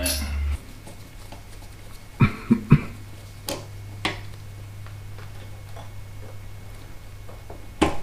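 A hand tool clinking and knocking on metal as the fuel tank's 8 mm mounting bolt is worked loose on a motorcycle. There are three low knocks about two seconds in, then a few sharp single clicks, over a steady low hum.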